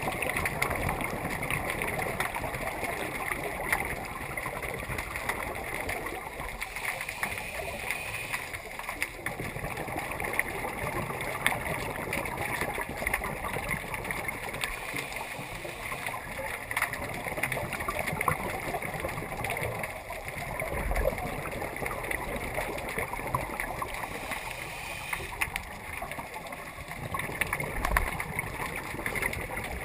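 Underwater sound picked up by a camera in its housing: a dense crackle and hiss of water with gurgling bubbles from scuba regulator exhalations, swelling every few seconds. A couple of low knocks come near the end.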